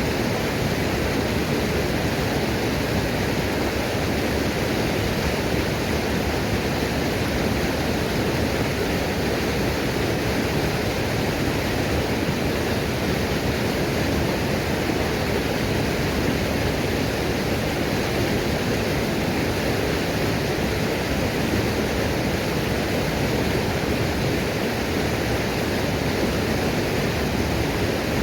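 Roadside waterfall: falling water pouring and splashing in one steady, unbroken rush, heaviest in the low and middle range.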